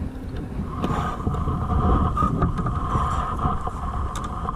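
Wind noise buffeting the microphone, with a steady high hum that sets in about a second in.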